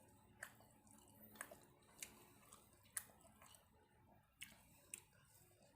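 Faint eating sounds: chewing, with about six sharp mouth clicks and smacks at uneven intervals.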